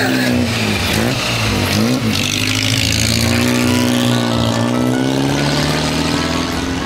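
Amilcar C.G.S. vintage sports car's small four-cylinder engine revving as it pulls away and drives off, its pitch rising and then falling about halfway through.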